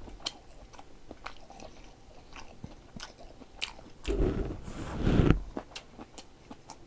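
A person chewing and biting food close to the microphone, with small scattered mouth clicks and a louder stretch of chewing a little past halfway.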